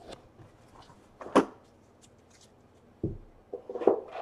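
Trading cards being handled and set down on a table mat: a few short rustles and taps, the loudest about a second in and a cluster near the end.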